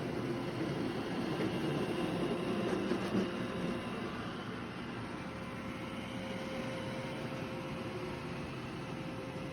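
Robot vacuum running: a steady motor and brush hum with a faint held whine.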